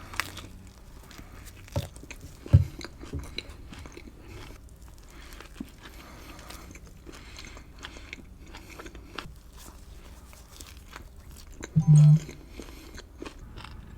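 Close-miked biting and chewing of a chicken seaweed wrap, with crunches and scattered wet clicks from the mouth. There is a sharp loud bite or knock about two and a half seconds in, and a brief loud low hum near the end.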